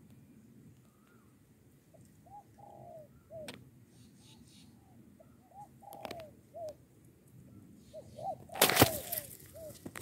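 Spotted dove cooing: a run of short, low coos repeated through the whole stretch. About a second before the end, a loud brief rustle close to the microphone.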